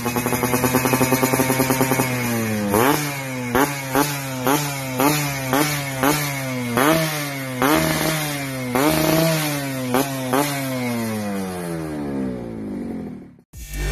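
Yamaha F1ZR's 110 cc two-stroke single-cylinder engine breathing through an SMR Jogja racing exhaust: idling steadily, then revved in quick repeated throttle blips from about three seconds in until about ten seconds in, each rising sharply and dropping back, before easing down toward idle. The sound cuts off suddenly near the end.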